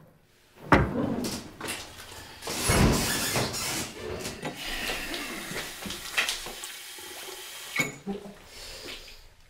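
A thump about a second in, then water running from a tap into a washbasin, with a few sharp clicks along the way.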